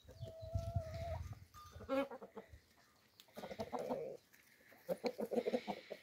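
Domestic hens clucking and calling, with a run of short clucks near the end, and a sheep bleating in between.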